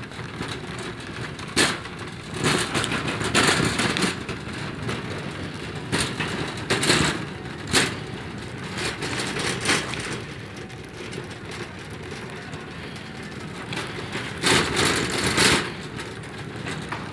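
Irregular rustling and knocking from the phone being handled while the person carrying it walks, over a steady background hiss.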